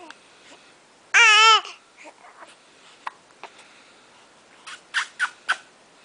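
Young baby vocalizing: one loud, high, wavering coo-squeal about a second in, lasting about half a second. Faint little mouth sounds follow, then three short, sharp breathy sounds in quick succession near the end.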